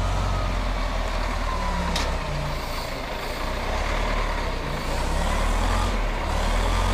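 Wheel loader's diesel engine running under load as it hoists a ditched truck by a chain from its bucket. It is a steady low rumble with a thin whine over it, and a sharp click about two seconds in.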